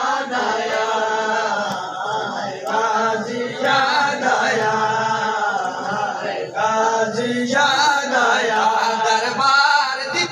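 Male voices chanting a noha, a Shia mourning lament, in long sung phrases with short breaks between them.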